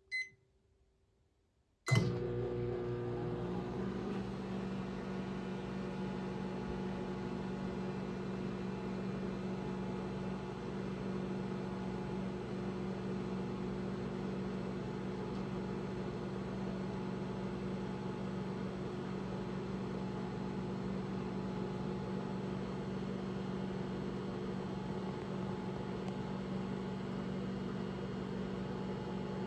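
Sharp R-308JW countertop microwave oven: a short keypad beep, then about two seconds in a click as it starts and a steady hum as it runs, heating water.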